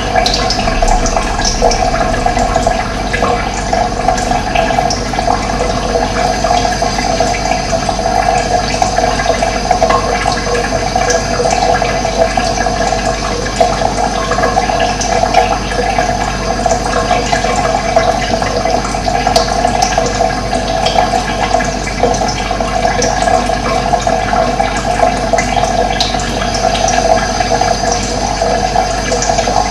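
Running water flowing steadily, with no break or change.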